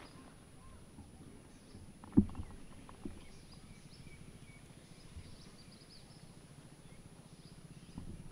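A single sharp knock of a kitchen knife on a wooden cutting board about two seconds in, with a lighter knock about a second later. Faint crackle of papery garlic skin being peeled by hand follows.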